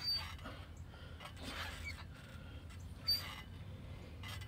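A man breathing hard in repeated puffs during squat exercises, with two short sharp clicks, one at the start and one about three seconds in.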